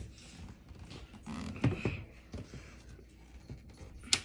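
Handling noises from unboxing a mini fridge: a few knocks and rustles about a second and a half in, and a sharp click near the end.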